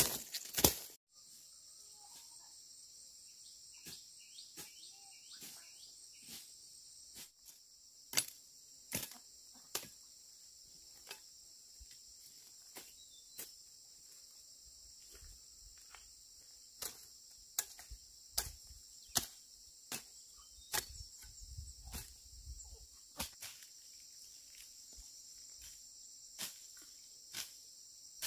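A steady high-pitched insect chirring, with irregular sharp clicks and taps over it; a few loud knocks come in the first second, and another loud click comes about eight seconds in.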